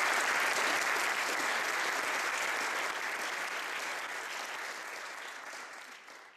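Audience applauding, a dense, even clapping that fades away over the last few seconds.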